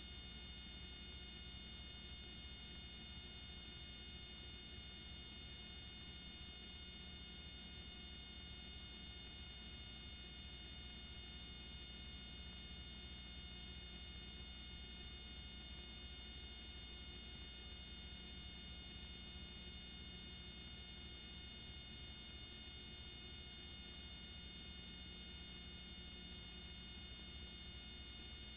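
Steady electrical buzz and hum with hiss, unchanging and with no other sounds: the noise of a blank stretch of videotape at the end of a transfer.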